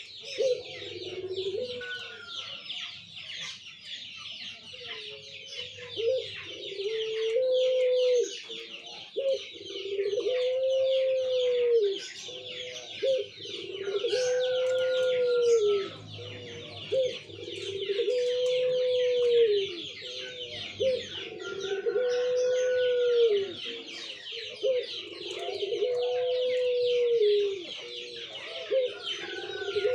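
Puter pelung, a domestic turtle dove bred for its long coo, cooing over and over. Each coo is drawn out and swells up and falls away in one arch, about one every two seconds.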